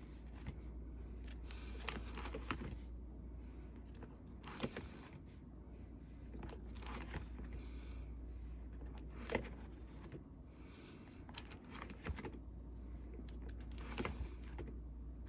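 Plastic sleeve pages of a ring binder being turned one after another: crinkling rustles of the plastic with a few light clicks and taps, over a low steady hum.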